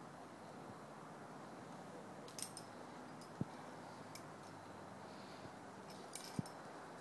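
Light metallic clinks of carabiners and quickdraws on a lead climber's harness rack, a few times, with two short dull thumps, the loudest sounds, over a steady low hiss.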